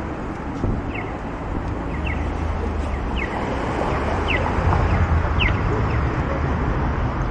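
Downtown street traffic with a vehicle engine rumbling, and a short high chirp repeating about once a second.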